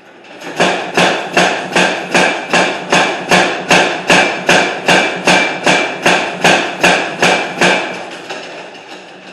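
Hammer blows forging a loaf of iron into square bar: a steady run of about nineteen even, ringing strikes, roughly two and a half a second. They start about half a second in and stop a second or so before the end, the ring dying away.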